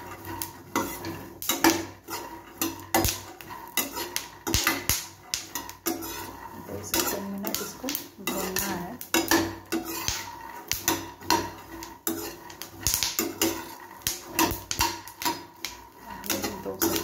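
A perforated metal spatula stirring and scraping raw peanuts as they roast in a nonstick kadhai: the nuts clatter and tumble, and the spatula scrapes the pan in irregular strokes a few times a second.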